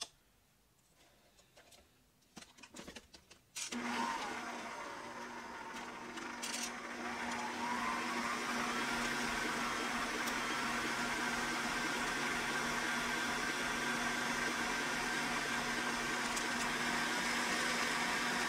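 A few faint handling clicks, then an electric stand mixer starts up about four seconds in and runs steadily, beating cheesecake batter in a steel bowl. A few seconds after it starts, its motor whine rises in pitch as it speeds up, then holds.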